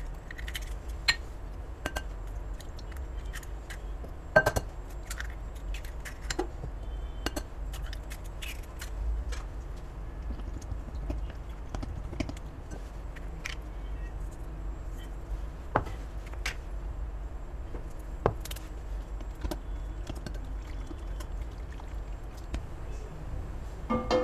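Eggs cracked against a glass mixing bowl and beaten with a whisk into fried potato cubes: scattered sharp taps and clinks on the glass, the loudest a few seconds in.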